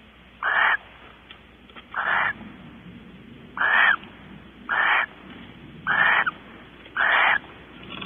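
Barn owl giving short, rasping, hissing calls, six of them, about one a second.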